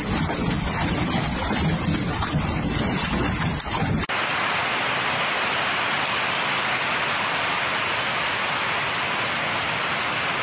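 A low, fluctuating storm noise on a phone recording, which cuts abruptly about four seconds in to the steady hiss of heavy rain and rushing floodwater running down a street.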